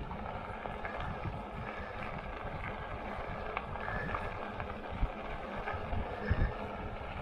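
Lectric XP e-bike's tyres rolling over a crushed-stone trail, a steady crunching rumble mixed with wind on the microphone, with a couple of low bumps about five and six seconds in.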